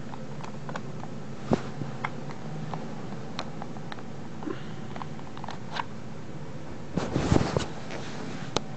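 Scattered light clicks and knocks from a Crosman M4-177 pump air rifle being handled, with a louder run of rattling and knocking about seven seconds in.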